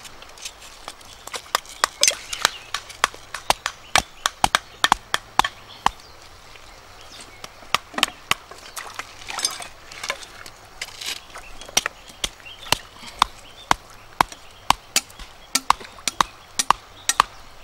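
Repeated sharp chopping strokes, unevenly spaced at about two a second, as in food or wood being chopped with a blade.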